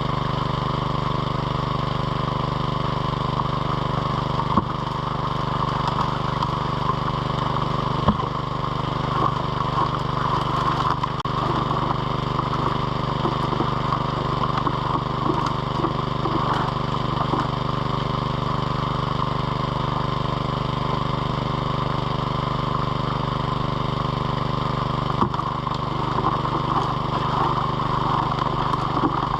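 Small petrol water pump running steadily at a constant speed, feeding a high banker, with water rushing through the sluice. A few short knocks stand out over it.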